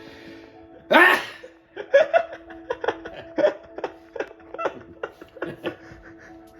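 An elderly man's loud sneeze about a second in, followed by several seconds of rhythmic laughter, with steady tones from a movie soundtrack underneath.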